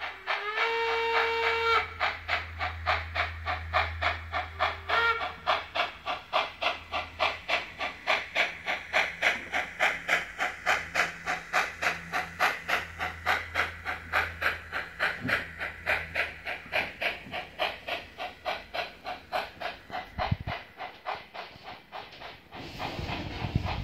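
Sound of a Trix HO-scale model steam locomotive: a steam whistle blows for about a second at the start and briefly again about five seconds in, over steady rhythmic chuffing at about three beats a second with steam hiss and a low hum. The chuffing fades near the end.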